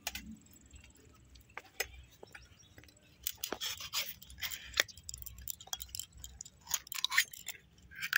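Pond mussel shells clicking and scraping against the steel blade of a boti as the meat is cut out. Quiet, scattered clicks with a few short scrapes.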